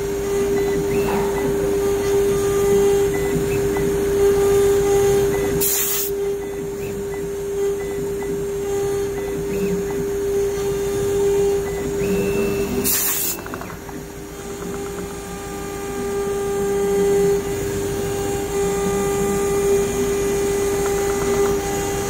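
The 2.2 kW spindle of a small CNC router running with a steady whine as its cutter engraves into a clamped sheet, with the stepper motors buzzing in shifting tones as the head moves. Two short noisy bursts come about six and thirteen seconds in.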